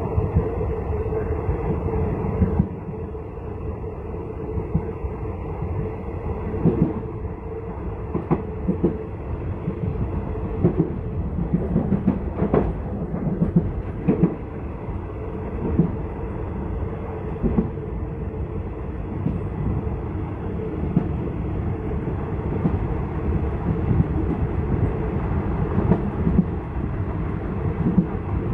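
Passenger train running along the track, heard from on board: a steady rumble of wheels on rail with irregular sharp clacks as the wheels cross rail joints. There is a cluster of louder clacks near the middle as it runs over a set of points.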